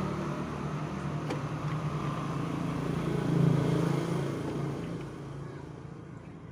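A motor vehicle's engine running steadily, growing louder about three and a half seconds in and then fading away toward the end.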